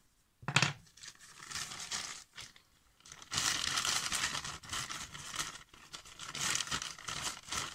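A brown paper bag crinkling and rustling as a hand works inside it to hold it up as a puppet, heaviest in the second half. A short knock sounds about half a second in.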